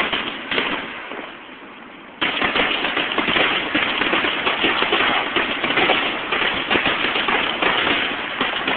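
Fireworks crackling: scattered crackles at first, then a sudden switch about two seconds in to a loud, dense barrage of rapid pops and crackles that keeps going.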